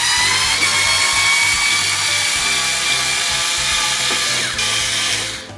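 Small electric screwdriver running continuously with a motor whine, backing out a screw from the LaserDisc player's tray mechanism. It starts abruptly, changes tone about four and a half seconds in, and stops just before the end.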